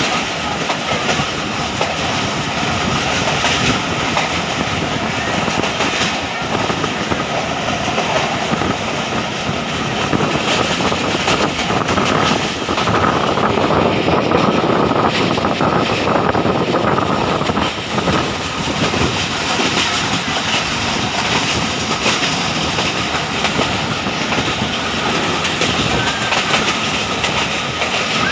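Millat Express passenger train running along the track, heard from aboard: a steady rumble and rush of wheels on rail with clicks over the rail joints.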